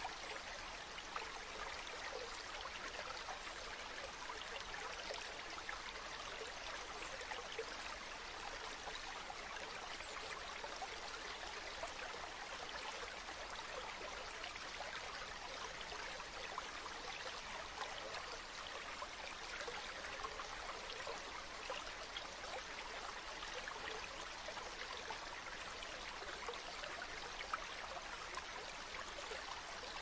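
River water flowing steadily: an even wash of sound with fine splashing and trickling in it.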